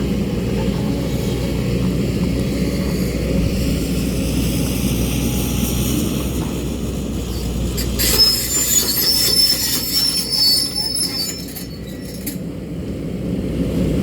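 JCB excavator working rock: the engine runs steadily under load, and from a little past halfway comes high-pitched metallic squealing and scraping that fades out after a few seconds.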